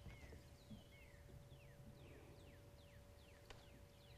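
Near silence with faint bird calls: a run of short downward-sliding whistled notes, two to three a second, over a low rumble and a faint steady hum.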